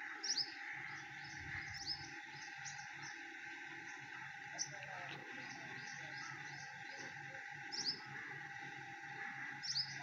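Male sunbird calling: short, sharp, high chirps that drop quickly in pitch, repeated at uneven intervals. The loudest come near the start, about two seconds in, just before five seconds, about eight seconds in and near the end, over a steady background hum.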